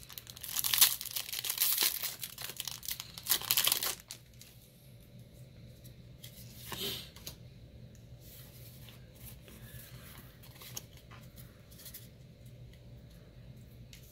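Foil Pokémon booster pack wrapper being torn open and crinkled, loud for the first four seconds or so. After that it goes quiet except for faint light ticks as the cards are handled.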